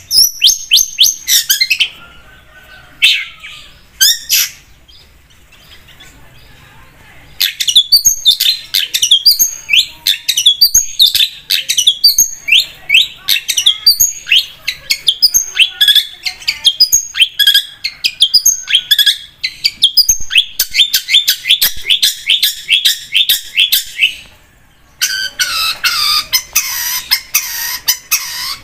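Long-tailed shrike (cendet) singing a fast, chattering song of rapid high notes. It falls quiet for a few seconds after the opening flurry, with only two short bursts, then sings on continuously, with a brief break about 24 seconds in.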